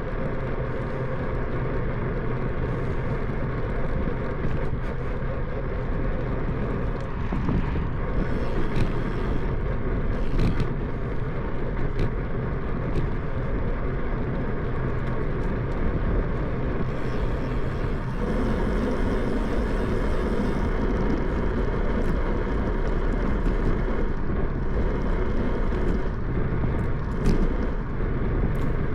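Steady rumble of wind on the microphone and tyres rolling on pavement while riding a bicycle, with a few light knocks.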